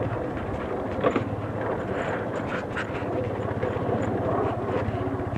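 Motorcycle engine running steadily as it is ridden, with a few short knocks and rattles about a second in and again around the middle.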